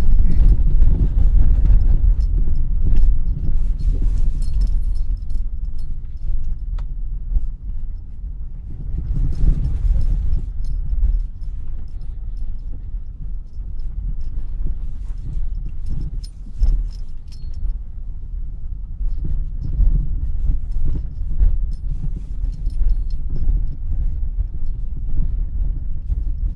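Vehicle driving over a rough, wet dirt track, heard inside the cabin: a steady low rumble of engine and tyres, with scattered clicks and rattles as it jolts over the bumps.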